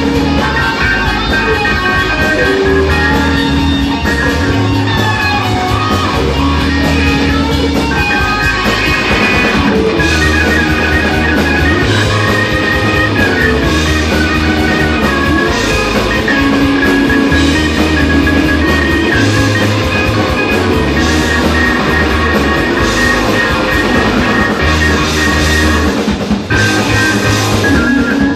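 Live rock band playing: electric guitars and drum kit with a Roland VK-8 organ, loud and steady with a pulsing low beat.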